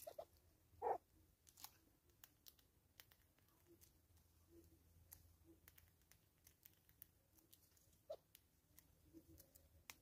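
Near silence broken by scattered faint clicks and taps, with a louder knock about a second in and another later on: a hornbill and a squirrel picking at seed from a feeder jar.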